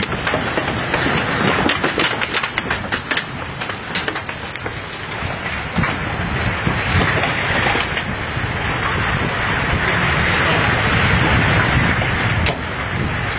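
Continuous roaring rumble of ground moving during an earthquake, with a run of sharp cracks and snaps in the first few seconds and the roar thickening from about six seconds in.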